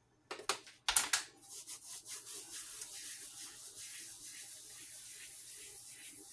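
Dried oregano leaves being rubbed and crushed between the palms, a steady rapid dry rustle, after a few sharp clicks about a second in.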